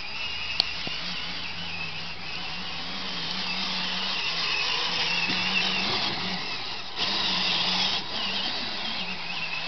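Battery-powered ride-on toy Jeep's electric drive motors and plastic gearboxes whining steadily as it drives, with a sharp click about half a second in. The whine gets louder for about a second near the end.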